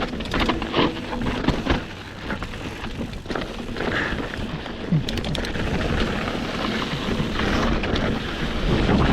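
Wind rushing over the microphone and a mountain bike's tyres running on a rocky dirt trail at speed, with scattered knocks and rattles as the bike hits bumps.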